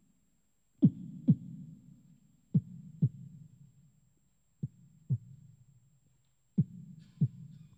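Vocal percussion, breath pushed into a handheld microphone, in a slow heartbeat-like lub-dub. There are four pairs of deep thumps about two seconds apart, each thump dropping in pitch and leaving a low hum behind it.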